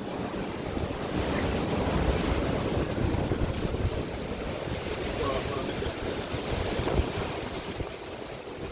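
Typhoon wind at around 120 km/h, blowing in gusts and buffeting the microphone with a deep rumble that swells after a couple of seconds and eases near the end.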